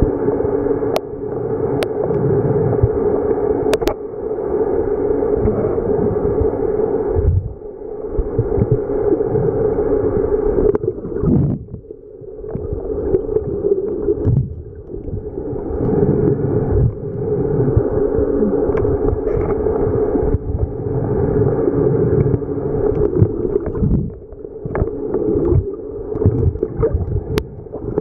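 Muffled underwater noise picked up by a submerged camera: a steady low hum with water gurgling, dipping briefly a few times.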